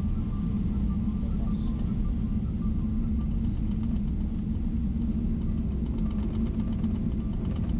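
Steady low cabin rumble of a Boeing 777-300ER taxiing after landing, its GE90 engines at low thrust. A faint rapid rattle joins in during the second half.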